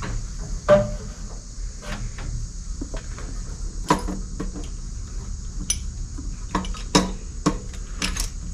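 Metal clinks and knocks as a carburetor with its fuel lines is handled and set down onto the carb spacer and intake manifold studs, a few sharp knocks spread out with quiet shuffling between.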